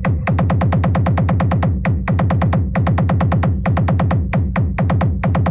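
Electronic DJ battle mix played loud through an 1800-watt sound system: a fast run of bass drum hits, about eight a second, each falling in pitch, with short breaks between phrases.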